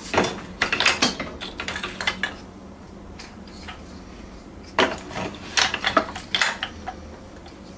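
Metal parts being handled: bursts of clicks, clinks and rattles in two clusters, the first over the opening two seconds and the second starting about five seconds in.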